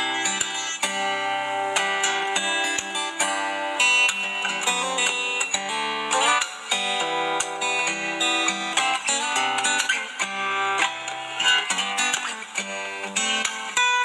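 Solo guitar played fingerstyle: a quick plucked melody over lower bass notes, the notes ringing one after another without a break.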